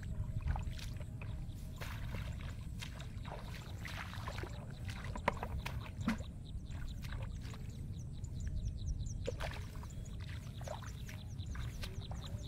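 Hands splashing and rustling through wet rice-field grass and shallow water, with scattered small splashes and clicks over a low steady rumble. A few faint high chirps come in the second half.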